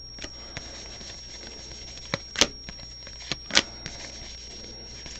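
Baseball trading cards being handled and flipped through by hand: small clicks and rustles, with two sharper snaps about two and a half and three and a half seconds in.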